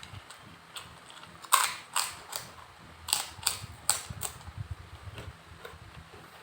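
Close-miked eating sounds: a run of sharp crunches and clicks over about three seconds, the loudest about a second and a half in, with faint low chewing underneath.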